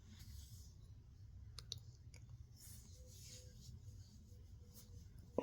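Near silence: a few faint clicks and two soft breaths over a low steady room hum.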